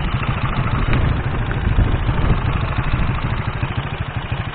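Engine of a small motor vehicle running steadily with a low, pulsing rumble, mixed with wind noise on the microphone.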